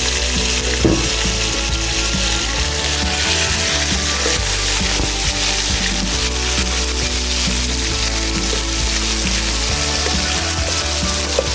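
Food frying in hot mustard oil in a pan: a steady sizzling hiss, with a sharp knock about a second in.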